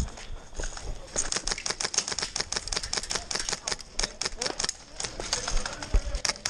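Airsoft rifles firing in quick runs of sharp clicking shots, many a second, broken by short pauses, with a low thump near the end.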